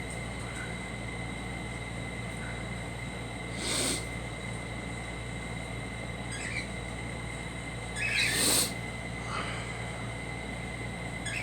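A person coughing: a short cough about four seconds in and a longer, louder cough near eight seconds, with a few fainter brief sounds between.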